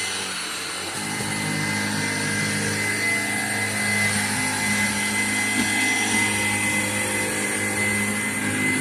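Kenmore DS1030 cordless stick vacuum running, a steady motor whine over a low hum. About a second in, the hum gets deeper and louder.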